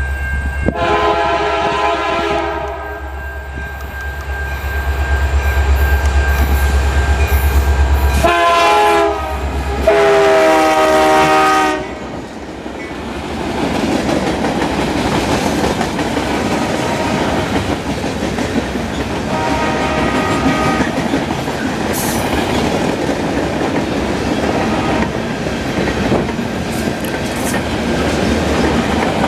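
An EMD SD75I diesel-electric freight locomotive sounds its horn three times in the first twelve seconds as it passes, its diesel engine rumbling underneath. After that, the wheels of lumber-laden center beam flatcars roll and clatter steadily over the rails, with a fainter horn blast about twenty seconds in.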